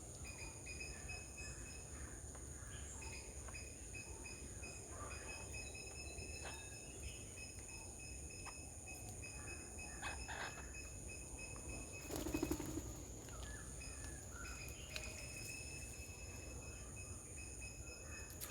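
Outdoor ambience of a steady high-pitched insect drone, with scattered short bird chirps and calls over it. A brief louder rustle or flutter comes about twelve seconds in.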